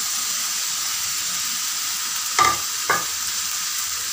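Pangas fish pieces and masala frying in hot oil in a pan, a steady sizzle. There are two short knocks about two and a half seconds in.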